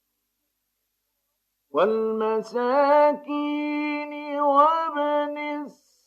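Male Quran reciter chanting in the drawn-out, melodic mujawwad style. After about a second and a half of silence, one long held line with ornamented turns of pitch begins, then breaks off briefly near the end.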